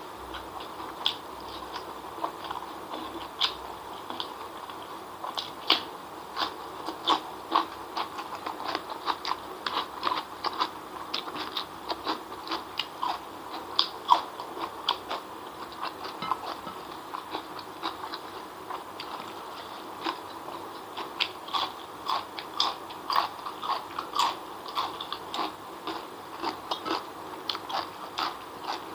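A person chewing and smacking close to the microphone while eating by hand: many short mouth clicks in irregular runs, with a lull of a few seconds past the middle.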